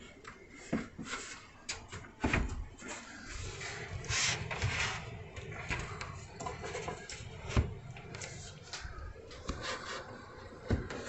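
Handling noises: a run of irregular clicks and knocks with some rustling, the sharpest knocks about two seconds in and again past the middle.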